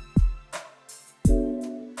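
Background music with drum hits and sustained chords.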